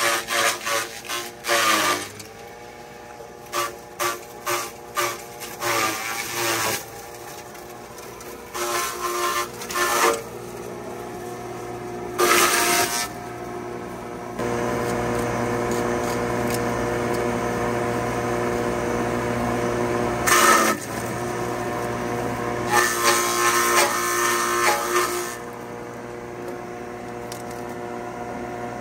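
Forage chopper running with a steady machine hum, broken by short loud bursts as elephant grass is fed through and chopped. The hum steps up louder about halfway through.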